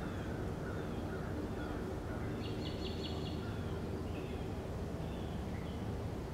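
Wild birds chirping in short, down-slurred notes, with a quick run of about five clicking notes about two and a half seconds in, over a steady low background rumble.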